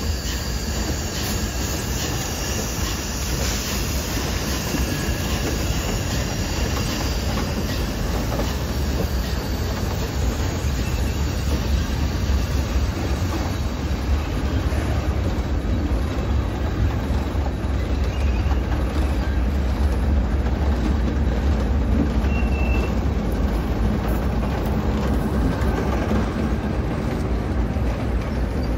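Union Pacific Big Boy No. 4014 steam train rolling across a wooden trestle overhead: a steady, loud, low rumble of wheels on the bridge. A thin, high wheel squeal rides over it in the first several seconds.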